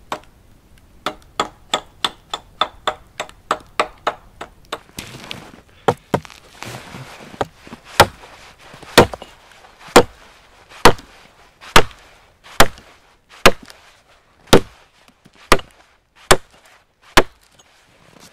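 Axe chopping a notch into a felled conifer log: loud, steady strokes about one a second through the second half. Before that comes a quicker run of lighter knocks, about three a second.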